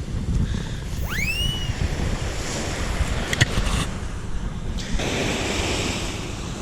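Surf washing on the beach with wind buffeting the microphone. About a second in there is a short rising squeal, and a few sharp clicks come a little after three seconds.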